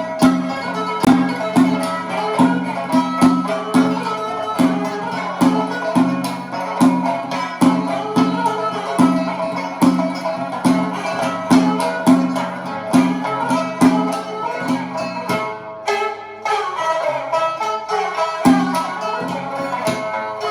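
Instrumental opening of a Jingyun dagu (Beijing drum-ballad) piece: a Chinese traditional ensemble of plucked strings with percussion strikes on a steady beat. About fifteen seconds in, the beat breaks off and the texture changes.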